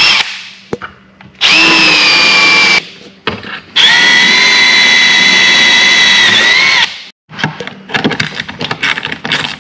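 Cordless drill boring through aluminium tackle track for through-bolts: two steady whining runs, the second longer, about three seconds, with a brief rise in pitch just before it stops. Then small irregular clicks and scrapes of a screwdriver working in the track.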